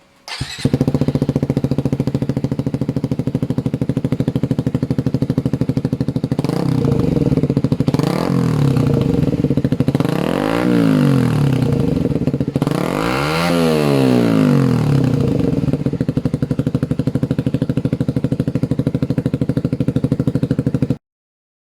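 Suzuki GSX-S150's single-cylinder four-stroke engine running through an aftermarket Akrapovic GP slip-on exhaust, idling with a rapid, even pulse. The throttle is blipped several times, each a quick rise and fall in pitch; the highest rev comes about two thirds of the way through, then it settles back to idle.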